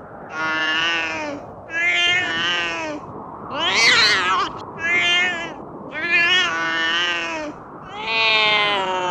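Cat meowing over and over, about six drawn-out meows with short gaps between them; the one about four seconds in is the loudest, rising and then falling in pitch.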